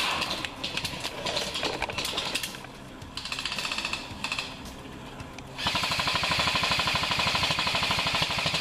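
Airsoft electric guns firing full-auto: several short rapid bursts, then a long continuous burst of about three seconds near the end, the loudest part.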